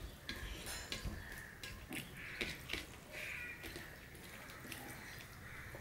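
Fingers squishing and mixing rice with mustard koi fish curry on a steel plate, giving soft wet squelches and small clicks against the metal. A crow caws behind it a couple of times.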